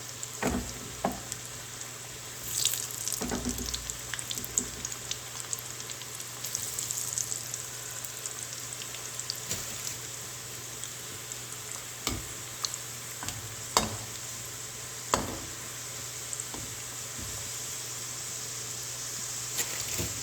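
Samosas deep-frying in hot oil: a steady sizzle, with a few sharp clicks and knocks scattered through it.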